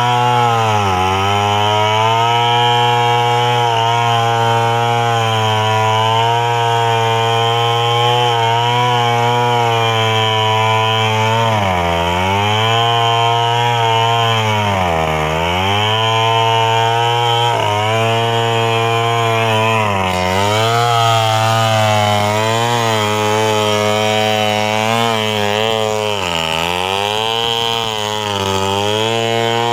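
Petrol chainsaw cutting into the trunk of a standing medang tree to fell it. The engine runs at high speed and drops in pitch several times as the chain bogs down in the wood, then picks up again.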